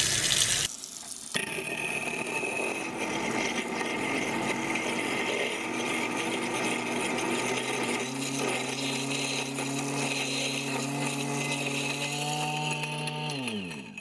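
Garbage disposal grinding a frozen lemon-and-vinegar cube with hot tap water pouring into the drain. The motor starts about a second in, settles into a steadier, clearer hum about eight seconds in, the sign that the cube is broken up, and near the end is switched off and winds down with a falling pitch.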